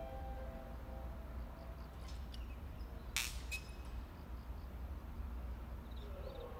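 Outdoor ambience of insects chirping faintly in grass over a steady low rumble. A tonal drone fades out in the first second, and a single sharp clink sounds about three seconds in.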